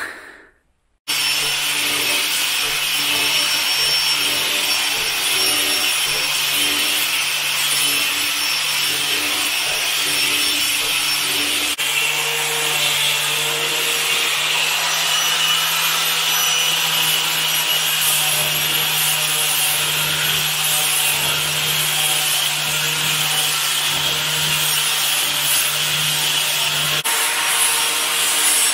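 Angle grinder with a flap sanding disc sanding a soot-blackened oak ceiling beam: a steady motor hum under the continuous rasp of the abrasive on the wood, starting about a second in.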